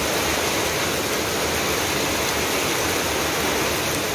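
Heavy rain pouring down, a dense, steady hiss of a downpour.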